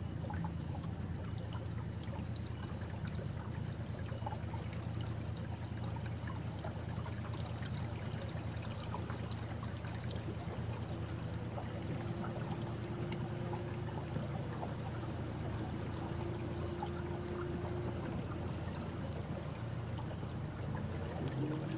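Boat's outboard motor running steadily with a low hum, with insects chirping in a regular, evenly repeating high-pitched pulse over it.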